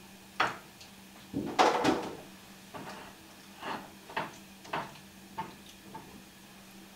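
A cooking utensil scraping and tapping against a pan while rice is stirred on the stove: a string of short scrapes, the biggest about a second and a half in, then one roughly every half second.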